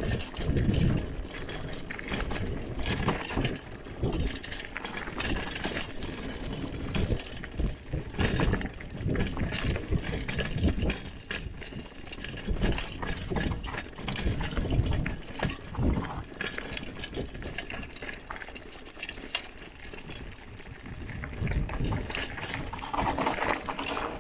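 Hardtail mountain bike riding fast down a rough dirt trail: tyres running over soil and stones, with frequent sharp knocks and rattles from the bike over the bumps.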